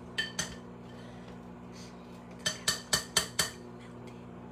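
Metal scoop clinking against a glass bowl while sherbet is knocked off it: two ringing clinks, then a quick run of five about a quarter second apart.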